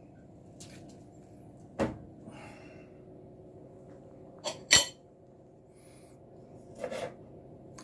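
Kitchen handling sounds: a few sharp knocks and clicks, the loudest a double knock a little under five seconds in, with brief soft crinkles of aluminium foil between them, over a faint steady hum.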